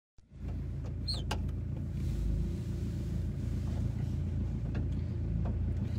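Car engine idling steadily, heard from inside the cabin as a low rumble, with a few scattered light taps and a brief high falling squeak about a second in.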